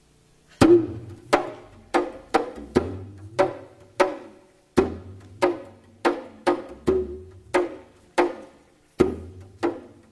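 Percussive music starts about half a second in: sharp, woody struck notes, roughly two a second in an uneven rhythm, each ringing briefly, over low bass notes that step from pitch to pitch.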